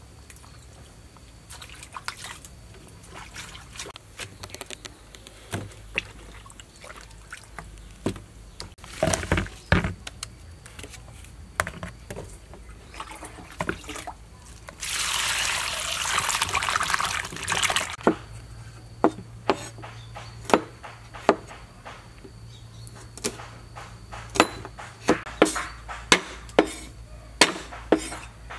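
Kitchen preparation sounds: scattered small knocks and handling as fresh herbs are stripped and sorted, then about three seconds of liquid being poured about halfway through. After that comes a run of sharp knocks, about one a second and quickening to about two a second near the end, like a knife chopping on a cutting board.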